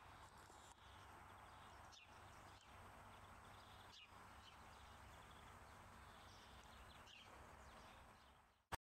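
Near silence: faint garden background with a few faint short chirps, likely distant birds. A single sharp click near the end, after which the sound cuts off completely.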